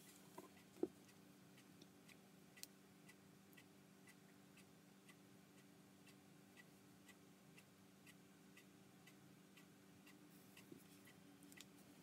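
Near silence with faint, regular ticking, about two ticks a second, over a low steady hum; one short soft knock just under a second in.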